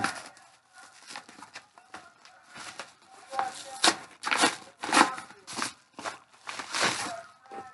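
Yellow padded paper mailer being torn open and handled: irregular crinkling and tearing, in uneven short bursts.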